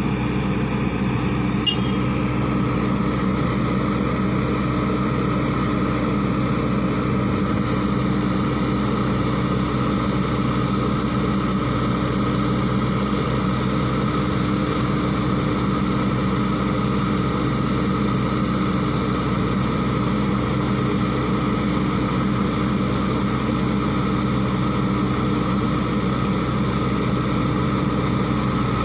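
Sany SY55C mini excavator's diesel engine running steadily while the boom and bucket work, the engine note holding an even pitch and level.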